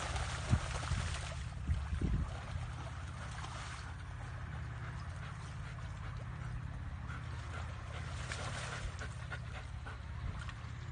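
Water splashing as a dog wades and swims through a muddy, flowing ditch, with a few splashes in the first two seconds, then the steady rush of the running water over a low hum.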